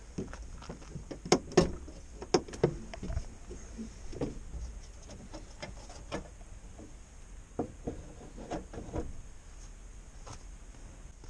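Bonnet of a 1993 Iveco Turbo Daily being unlatched and lifted open: a few sharp clicks and knocks, the loudest two close together about a second and a half in, followed by scattered lighter knocks as it is handled.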